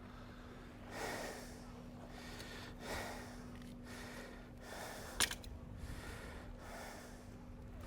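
A man breathing close to the microphone, several soft breaths in a row, with one sharp click about five seconds in.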